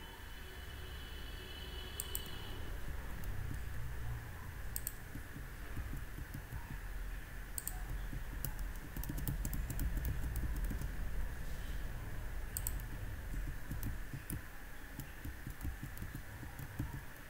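Computer keyboard keys being pressed: scattered single clicks with quicker runs of keystrokes around the middle and again near the end, over a steady low background hum.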